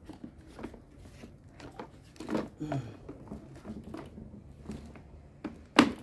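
Plastic clicks and knocks as a wheel is pushed onto the plastic frame of an electric pressure washer, ending in one sharp snap near the end as it goes into place.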